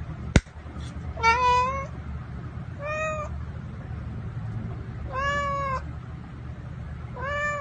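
Orange tabby cat meowing four times, short meows about two seconds apart, while staring at a can of cat food held in front of it: asking to be fed. A single sharp click comes just before the first meow.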